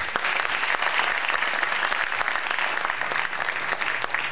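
Studio audience applauding steadily: a dense patter of many hands clapping.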